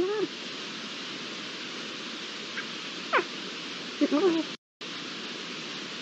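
Iberian lynx calling: short meow-like calls at the start and a cluster of them about four seconds in, with a single falling whistle about three seconds in, over the steady hiss of the webcam's microphone.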